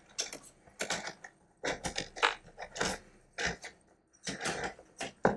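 Irregular small clicks and rustles as a thin sensor cable is pulled through an opening in the plastic housing of a Neakasa M1 litter box, with the hands knocking against the plastic parts.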